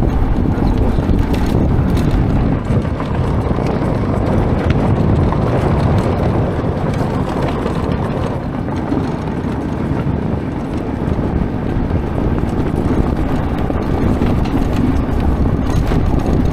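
A Honda ATV converted to electric hub-motor drive being ridden over a gravel track: a steady rush of wind on the microphone, with the tyres crunching and rattling over the stones. There is no engine note.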